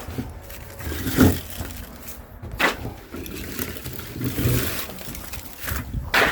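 Split firewood logs knocking and clattering as they are unloaded and tossed onto a pile: a handful of separate wooden knocks, the loudest about a second in and two in quick succession near the end, over a low steady rumble.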